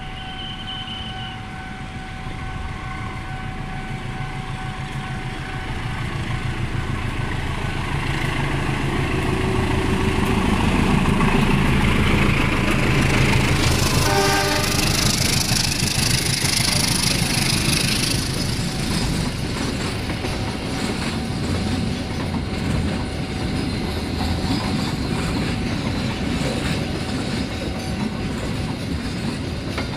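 A train approaching and passing a railway level crossing. Its noise builds steadily, a brief horn sounds about halfway through, and then the carriages roll past with steady wheel clatter over the rail joints.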